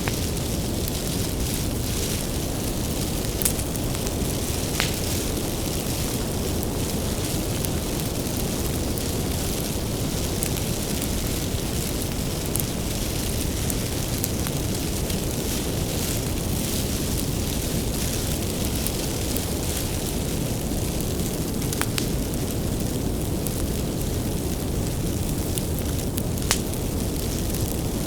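Bonfire of burning firewood with a steady low rumble and hiss of the flames, and scattered sharp crackles and pops from the wood.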